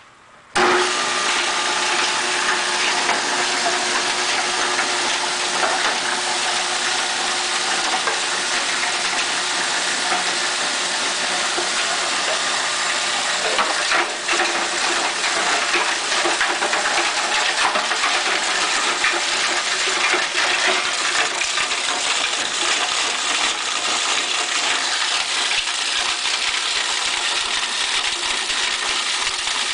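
Nelmor plastics grinder with a 10-horsepower three-phase motor, which starts abruptly about half a second in and then runs steadily while it chops PVC pieces. The dense clatter and rattle of the plastic in the rotor sits over a steady machine hum.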